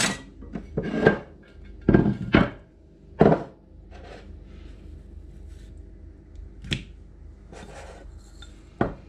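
Kitchen dishes and utensils handled on a countertop: a ceramic baking dish set down beside a wooden cutting board, with a run of sharp knocks and clatters in the first three seconds or so, then quieter handling as the fish fillets are laid in the dish, with a couple of single clicks near the end.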